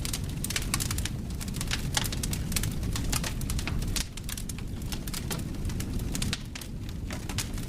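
Campfire crackling with dense, irregular sharp pops and snaps over a low rumble of wind. The sound drops a little in level about four seconds in.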